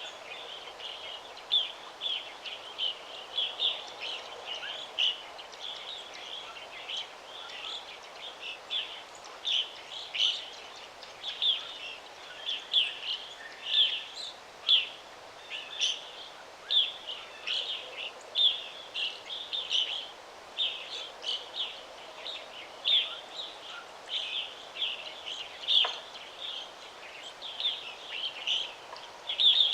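Small songbirds chirping, many short, high chirps following one another, over a soft steady background hiss.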